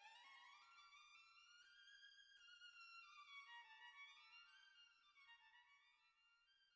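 Faint background music: a single melodic instrument playing runs of notes that climb, then fall, and start climbing again near the end.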